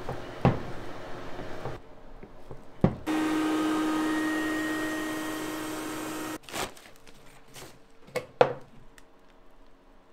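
Epoxy mixing at the bench: two sharp knocks from the epoxy pump dispenser, then a steady hum for about three seconds that fades slightly and cuts off suddenly. Light scraping and a couple of clicks follow from a wooden stick scooping filler and stirring thickened epoxy in a plastic mixing cup.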